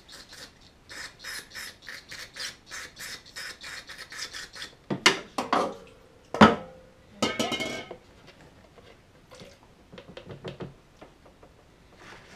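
Rag rubbing and scrubbing inside a snowmobile's emptied brake master cylinder reservoir to clean out old fluid and grime: quick, even rubbing strokes, then a few louder knocks and clatters midway, then lighter wiping.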